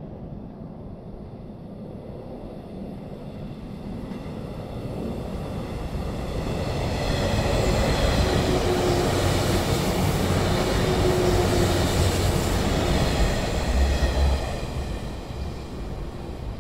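485-series 'Resort Yamadori' electric multiple unit passing through a station without stopping. Its wheels on the rails and its running gear make a rumble that builds over several seconds, stays loud through the middle, and fades quickly near the end as the last car goes by.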